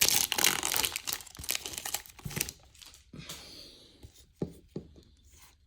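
Foil wrapper of a baseball trading-card pack being torn open and crinkled, dense for about two and a half seconds, then quieter scattered rustles and clicks as the cards are handled.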